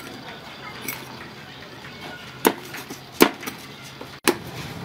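Meat cleaver chopping crispy pork belly on a wooden chopping board: three sharp chops in the second half, with a fainter knock about a second in.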